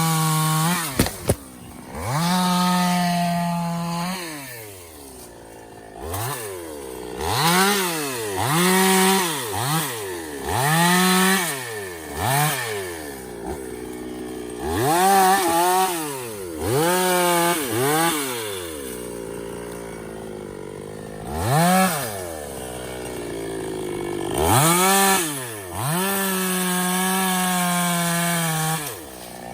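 Two-stroke Stihl petrol chainsaw with its throttle blipped over and over, the engine revving up and dropping back about a dozen times, with a few held stretches at full throttle near the start and near the end. Two sharp clicks about a second in.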